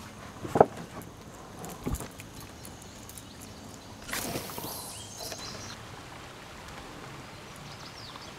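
A sharp knock about half a second in and a dull thump near two seconds, then a brief hissing rush about four seconds in, over faint outdoor background.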